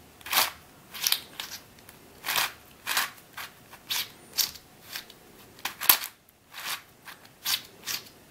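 Plastic layers of a Cube4You 3x3x7 cuboid puzzle being turned quickly by hand while scrambling it: short clicking swishes at an uneven pace of about two a second.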